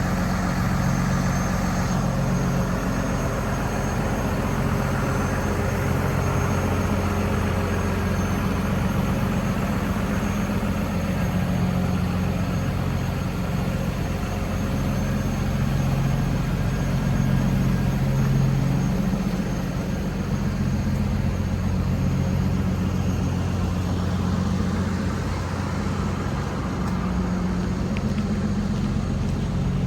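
2019 DAF LF260 refrigerated lorry idling: a steady diesel engine hum that swells and eases slightly.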